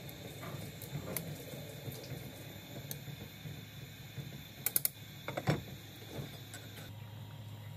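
Glass pot lid clinking as it is lowered back onto a ceramic casserole pot, with a quick triple clink and another tap a little over halfway through. Lighter scattered ticks come before, over a steady hum from the gas stove.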